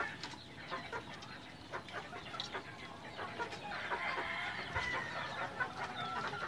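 Pigeons pecking grain from wooden feed troughs: a scattered patter of light clicks. A bird calls in the background with long drawn-out notes from about four seconds in.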